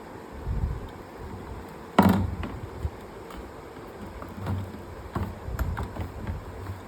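A sharp knock about two seconds in, with a short falling ring after it, then lighter taps and low thumps.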